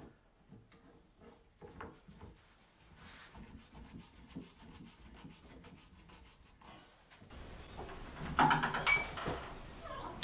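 Faint clicks and scrapes of steel bar clamps being adjusted and tightened on a glued-up wooden cutting board. About seven seconds in, a louder low rumble with a few knocks comes in.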